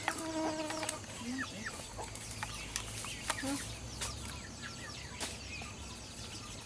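Chickens clucking now and then, short low calls, among scattered sharp clicks and taps.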